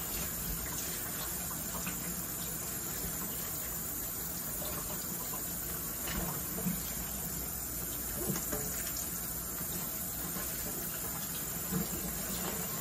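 Kitchen faucet running steadily as a whole raw chicken is rinsed under it in the sink, with a few faint knocks of handling.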